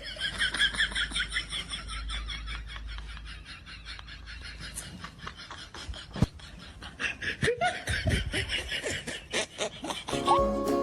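Laughter in repeated high-pitched bursts, strongest in the first two seconds and again later on, with a sharp click about six seconds in. Music starts near the end.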